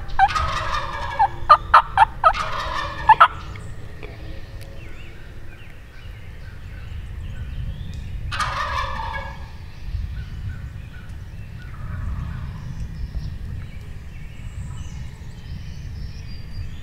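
Wild turkey gobbler gobbling close by: a loud rattling gobble in the first three seconds and a shorter gobble about eight and a half seconds in.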